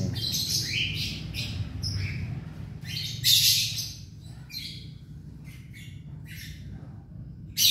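Baby plantain squirrel giving repeated short, high-pitched squeaks while its paralysed hind feet are massaged. The squeaks are a pain reaction, which the handler takes as a sign that feeling is returning to the legs. The loudest squeak comes about three seconds in, over a low steady hum.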